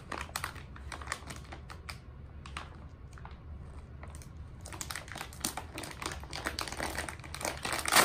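Plastic toy packaging being handled and opened: a string of quick small clicks and crinkles. They thin out briefly in the middle and come thick and fast in the second half.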